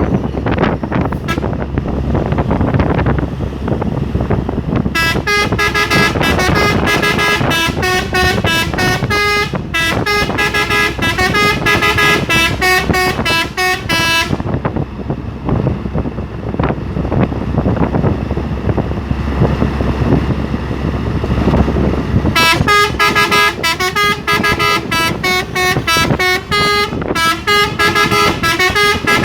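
Three-trumpet telolet air horn on a Hino truck tooting a rapid tune of short, changing notes, from about five seconds in to about fourteen and again from about twenty-two seconds on. Under it the truck's engine and road noise run steadily.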